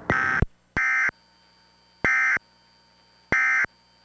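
Emergency Alert System digital data bursts from an Idea/Onics CG-1000 EAS unit: short, harsh two-tone screeches, four in about three and a half seconds, the last three about a second apart. Coming right after the spoken test message, they are the end-of-message code that closes the alert.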